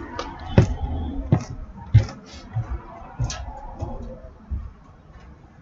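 Footsteps walking away, about one and a half steps a second, growing fainter.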